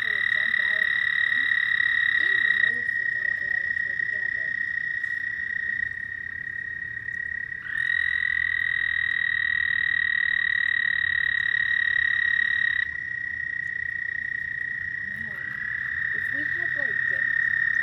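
Frogs calling: long, steady, high-pitched trills lasting several seconds each, a new one starting about eight seconds in and another near the end, over a fainter continuous chorus.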